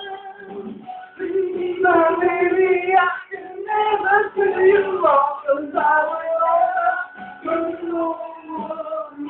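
A voice singing a melody over music.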